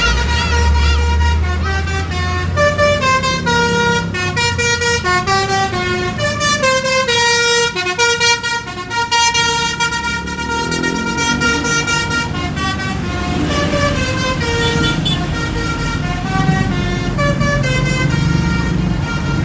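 Bus 'telolet' musical air horn playing a tune of quick stepped notes, one after another. A low engine rumble sits under the first couple of seconds.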